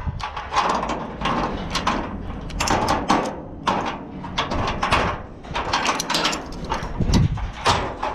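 Wheel tie-down straps being unhooked on a car carrier's perforated steel deck: metal hooks and ratchet hardware clink and rattle against the steel and the webbing scrapes, in a run of irregular sharp clatters.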